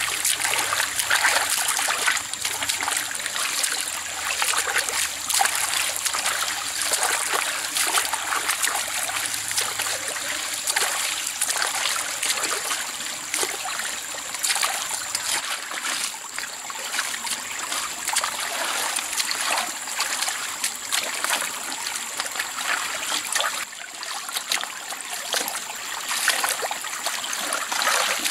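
Stream water trickling and splashing, a continuous run of small splashes, with a thin steady high tone above it.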